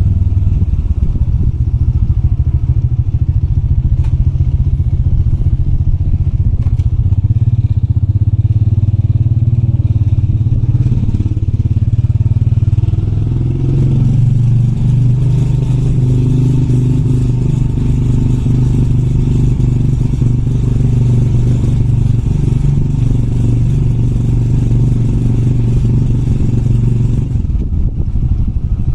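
Motorbike engine running as it is ridden, with a couple of sharp clicks about four and seven seconds in. From about halfway the engine note holds steadier.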